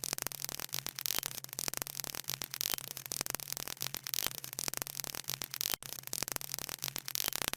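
Crackling static noise, dense and irregular, over a steady low hum; it cuts off suddenly at the end.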